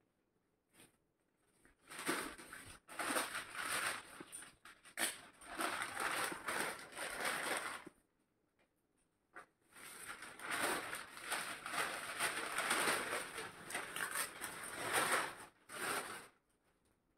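Newspaper gift wrapping being torn and crumpled off by hand: two long stretches of paper rustling and crackling, each lasting about six seconds, with a short pause between them.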